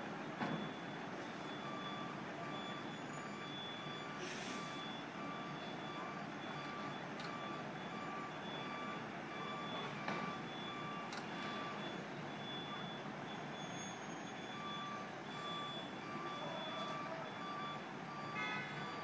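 Construction vehicle's back-up alarm beeping in a steady repeating pattern over a constant din of site and street noise, with a few brief sharp knocks.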